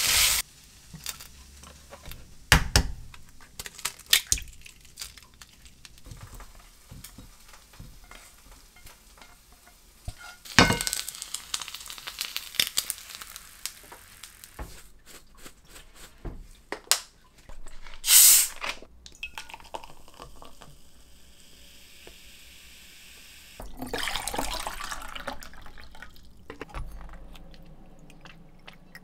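Kitchen cooking sounds: utensils clinking and knocking against pans and dishes, with a few short spells of hissing noise between them.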